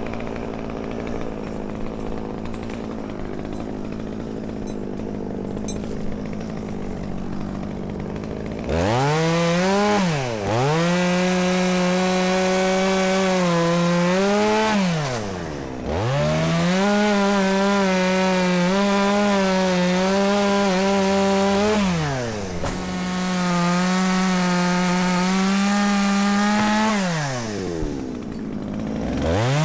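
Gasoline chainsaw cutting wood: after about nine seconds of quieter steady running it revs to full throttle and holds there in four long runs, dropping off and coming back up briefly between them.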